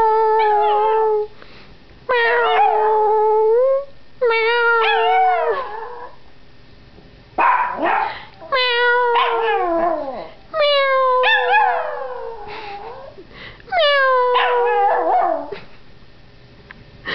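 Yorkshire terrier puppy howling: a series of about six drawn-out howls, each held on one pitch and then sliding down at the end, with short pauses between them.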